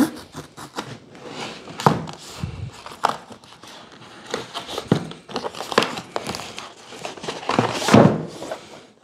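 A product box being opened and its packaging handled: scattered knocks, scrapes and rustling, with the loudest rustle about eight seconds in.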